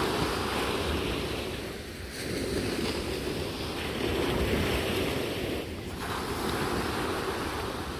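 Surf washing onto a beach, a rushing noise that swells and eases every few seconds, with wind buffeting the microphone.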